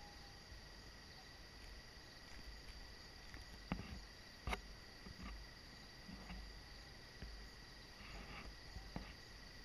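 Faint, steady high-pitched drone of insects calling. Two sharp clicks come a little before the middle, with a few softer knocks after.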